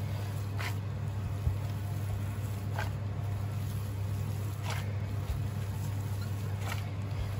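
Gloved hand kneading and squeezing a sticky mix of ground pork and sliced pork skin in a pot, with a soft wet squelch about every two seconds. A steady low hum runs underneath.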